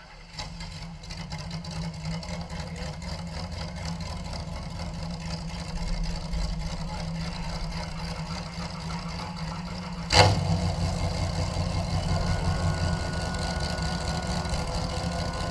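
Dragster engines idling with a steady low rumble; about ten seconds in there is a sudden sharp bang and the engine sound close by gets louder, as an engine fires up and settles into a loud idle.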